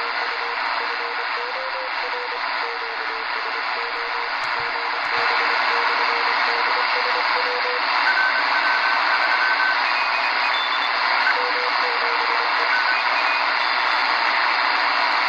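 Grundig G5 shortwave radio's speaker in single-sideband mode on the 40-metre amateur band: steady static hiss with Morse code signals beeping through it, their pitch shifting as the radio is tuned. The hiss gets louder about five seconds in.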